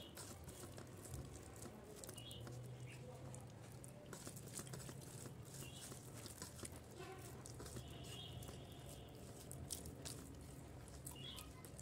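Quiet sounds of eating rice by hand: fingers mixing rice and fish curry on a steel plate, with chewing and soft mouth clicks, over a faint steady low hum.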